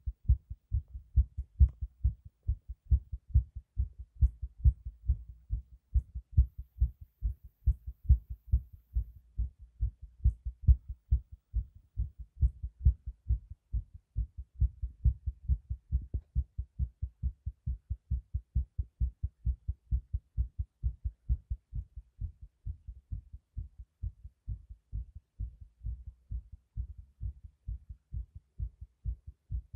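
Heartbeat: a steady, regular run of short low thumps, about three a second.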